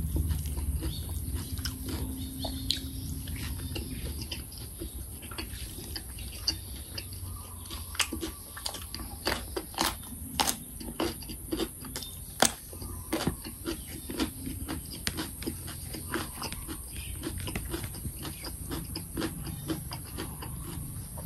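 Close-up eating sounds: chewing sticky rice and chili paste, and biting into a crisp raw green vegetable. A run of sharp crunches is loudest about halfway through.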